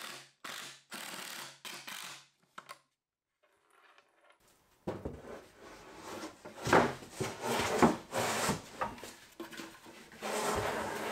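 Several short bursts from a cordless drill driving screws into plywood. After a pause, a plywood cabinet box is set down and slid into its opening in a workbench, with wooden knocks and scraping.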